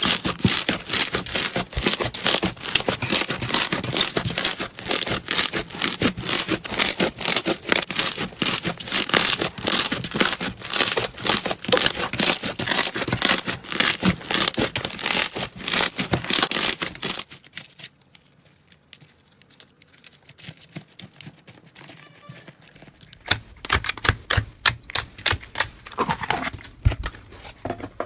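Slime being squeezed and pressed, giving a dense run of crackling, popping clicks. The crackling drops to a faint stretch about two-thirds of the way through, then sharp clicks return near the end.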